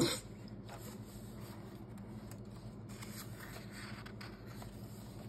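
Quiet room tone with a low steady hum and a few faint rustles and scrapes of hands on the pages of a hardcover picture book.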